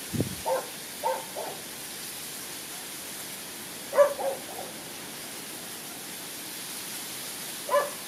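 Short, pitched animal calls in small groups: three about a second in, a louder pair about four seconds in, and one near the end, over a steady hiss. A brief low thud comes right at the start.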